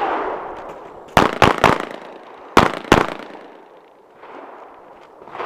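Pistol shots in two quick strings: three rapid shots, then a short pause and two more.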